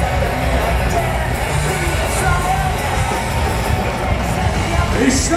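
Loud fighter entrance music playing over an arena's sound system.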